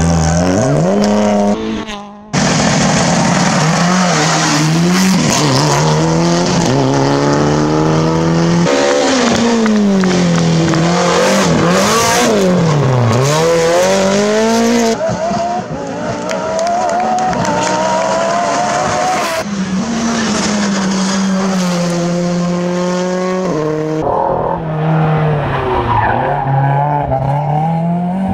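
Rally car engines driven flat out, their pitch climbing through each gear and dropping sharply on shifts and lifts, over several cut-together passes, with some tyre squeal.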